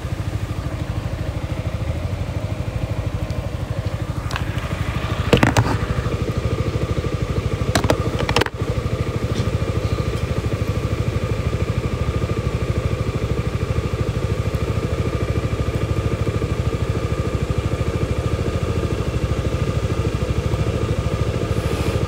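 Yamaha motorcycle engine running steadily at an even, unchanging pitch, with a couple of brief knocks or clatters about five and eight seconds in.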